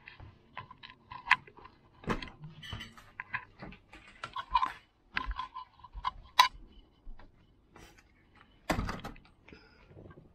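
Cutlery and crockery clinking and rattling on a carried tray in many short, irregular clicks, with a louder knock near the end.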